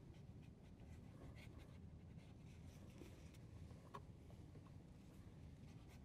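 Near silence: a faint room hum with soft, scattered scratches of a small paintbrush laying acrylic wash onto a heavy paper artboard.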